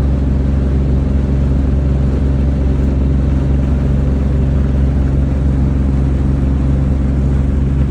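Boat engine running steadily, a low hum that holds one pitch throughout.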